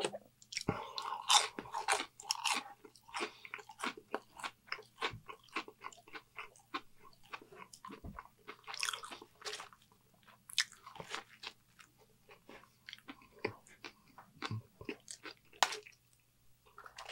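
Close-miked chewing and crunching of fast food — fries, onion rings and a Whopper burger — with many irregular sharp mouth clicks and crunches, busiest about a second in and again around the middle.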